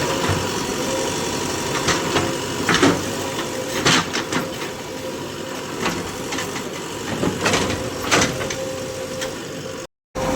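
Backhoe loader's diesel engine running steadily at low speed, with a held tone and several short sharp knocks or clanks spaced through it.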